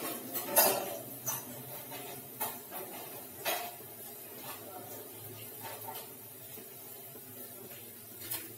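Steel pots, pans and utensils clinking and knocking against each other: a handful of sharp clanks in the first four seconds, the loudest about half a second in, and one more near the end.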